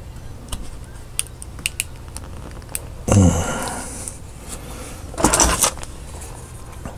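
A thin metal pick and small parts clicking and clinking lightly against a Bosch EV1 fuel injector's nozzle end as its spacer is worked on by hand. Two louder handling noises come about three and five seconds in.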